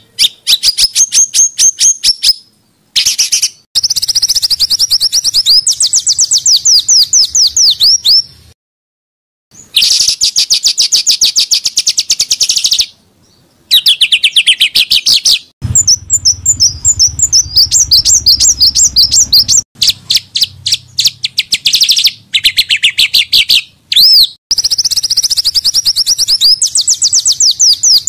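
Small songbirds singing dense, rapid-fire runs of fast repeated high notes and trills, some notes sweeping up or down. The song stops and starts abruptly, with a few short silent gaps. This is a 'tembakan' (rapid-burst) tutor song of the kind played to caged songbirds.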